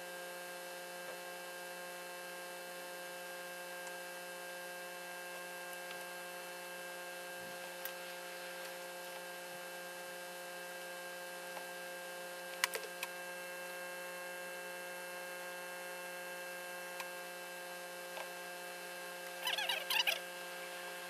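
Steady electrical hum made of several fixed tones. A few faint taps are heard around the middle, and there is a brief crackly rustle near the end.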